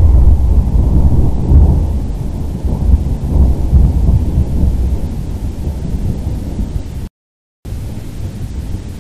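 Thunder rumbling, loud at first and slowly fading. The sound drops out completely for about half a second near the end.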